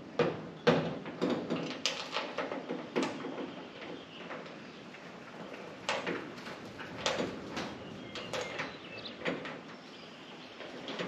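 Bolts being started by hand into a steel tool cabinet while fitting its handle: irregular light metallic clicks and knocks of hardware against the cabinet, busiest in the first few seconds.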